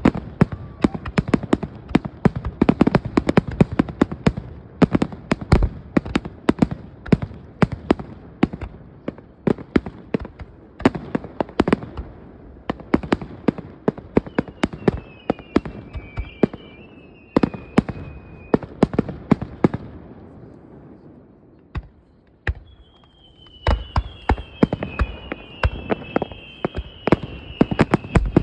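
Fireworks going off in a rapid, continuous string of bangs and crackles, dropping to a short lull a little past the middle before starting up again. High whistles sound over the bangs twice in the second half.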